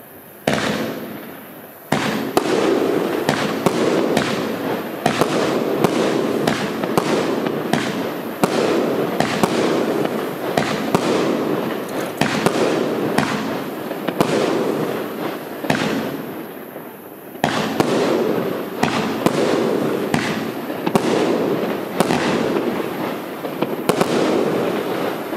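A 19-shot consumer firework cake firing shot after shot, roughly one a second, each launch followed by crackling glitter bursts. The shots pause briefly about two-thirds of the way through, then resume.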